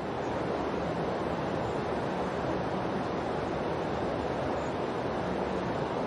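Steady, even hiss-like noise with no swells, breaks or rhythm: the masking noise bed of a subliminal audio track, under which the affirmations are hidden.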